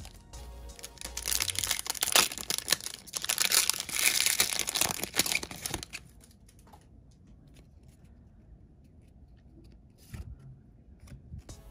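A foil trading-card pack wrapper being torn open and crinkled, a dense crackling rustle that stops about six seconds in, followed by a few faint clicks of cards being handled.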